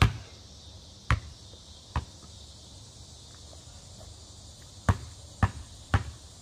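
Basketball bouncing on a concrete driveway: three bounces about a second apart as it comes down after the shot, then about four quicker dribbles half a second apart near the end. A steady high insect buzz goes on behind.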